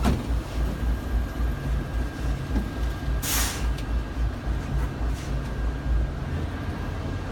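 Tour coach's diesel engine running with a steady low, pulsing rumble, and a short hiss of air from the air brakes about three seconds in.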